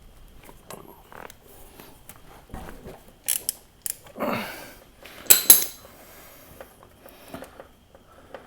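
Hand tools working the drain plug on a Kubota BX23S front axle: a series of irregular metallic clicks, clinks and clanks, loudest a little past halfway, as the plug is loosened.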